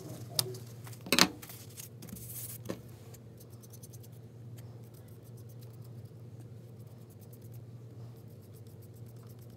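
A few sharp taps and knocks of paper and brush being handled on a wooden tabletop, the loudest about a second in, then the faint scratch of a paintbrush spreading glue over torn paper, with a steady low hum from the room.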